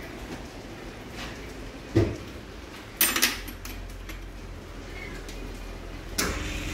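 Controls on a diesel pump test bench's panel being operated: a dull thud about two seconds in, a quick cluster of sharp clicks a second later and another sharp click near the end, over the bench's steady low hum.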